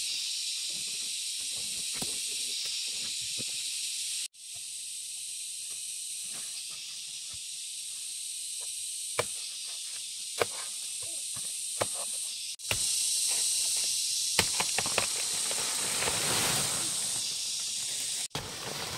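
Steady high-pitched drone of an insect chorus. In the last few seconds there is rustling and scattered clicks of footsteps through vegetation.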